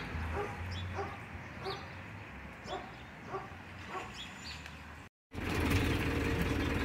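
A dog barking over and over at an even pace, a little under two barks a second. About five seconds in, a sudden cut brings in the steady running noise of a bus, heard from inside.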